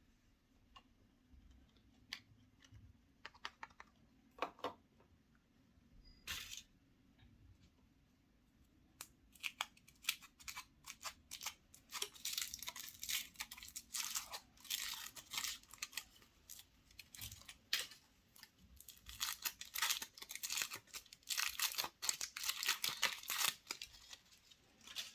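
Thin foil wrapper of a chocolate surprise egg being torn and crinkled by hand: a few sharp crackles at first, then dense, continuous crinkling for most of the second half.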